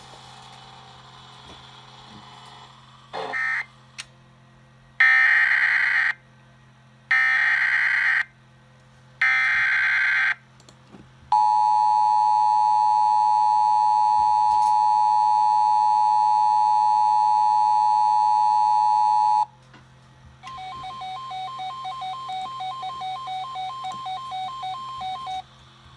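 Emergency Alert System encoder tones: three loud bursts of SAME digital data header about a second apart, then the steady two-tone EAS attention signal held for about eight seconds, then a rapidly pulsing pair of beeps for about five seconds. A low steady hum runs underneath.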